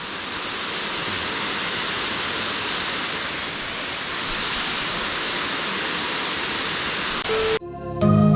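Waterfall rushing with a steady, even roar of falling water. It cuts off about seven seconds in, and music starts near the end.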